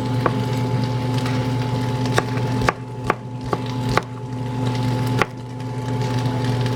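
Knife chopping green onions on a cutting board: about seven sharp, irregularly spaced knocks of the blade hitting the board, the last one about five seconds in, over a steady background hum.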